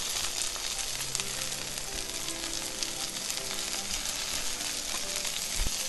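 Sliced porcini mushrooms sizzling as they fry in hot oil in a frying pan, giving off their water. There are a few light knocks as a fork and spoon turn the slices.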